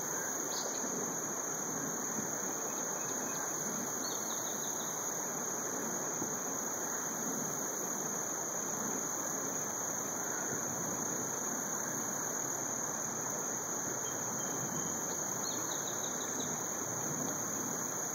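Steady outdoor hiss with a constant high-pitched insect drone, and a small bird giving short series of quick chirps three times: near the start, about four seconds in, and near the end.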